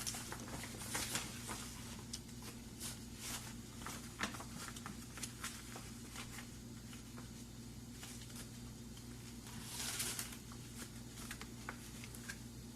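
Fabric being handled and folded into pleats by hand: scattered rustling with small clicks and taps, and a longer, louder rustle about ten seconds in.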